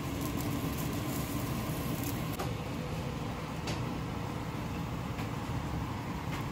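Gas stove burner flames running steadily under eggplants being charred on the grate, with a few faint clicks.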